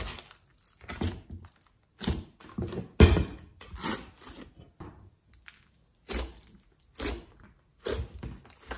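Hands squeezing and pressing a large lump of glossy slime, making wet squishes and crackling pops of trapped air in short bursts about once a second. About three seconds in comes the loudest sound, a heavy thunk as the slime is turned out of the glass dish onto the tabletop.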